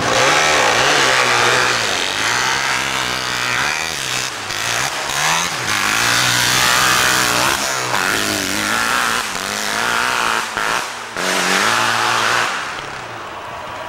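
Pro hillclimb motorcycle's nitro-and-alcohol-fuelled engine running flat out up a steep dirt hill, its pitch rising and falling again and again as the throttle is worked. It fades near the end.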